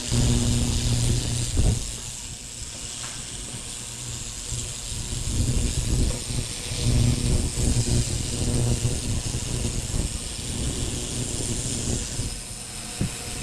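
Harbor Freight ultrasonic cleaner running with wrench parts in its detergent bath: a buzzing hum with a steady hiss over it. The hum is stronger for the first couple of seconds and again in the middle.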